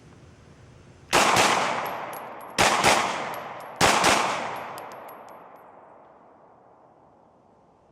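Glock 19X 9mm pistol fired six times in three quick double taps, the pairs about a second and a quarter apart, the reports echoing and dying away over a few seconds.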